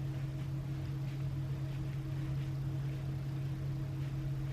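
A steady low hum at one unchanging pitch, with a few faint, soft rustles over it.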